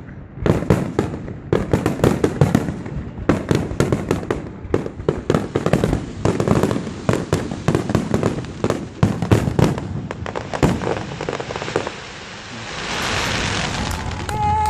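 Fireworks display: a dense, rapid run of aerial shell bangs and crackles for about eleven seconds, easing briefly, then a steady wash of noise for the last two seconds or so.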